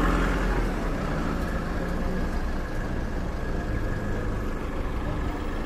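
Diesel engine of a Renault box-body fire truck running low and steady as the truck rolls slowly past at close range.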